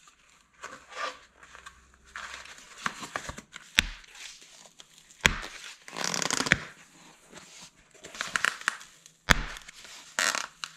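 Foam packing sleeves and tape being handled and pulled off a bicycle's suspension fork: irregular rustling and tearing, with a few sharp knocks.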